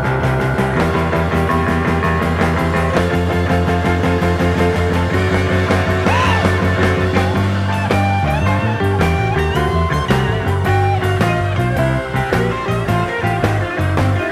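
Rock band playing live with no singing: grand piano over a stepping bass line and a steady drum beat, with gliding, bent notes about halfway through.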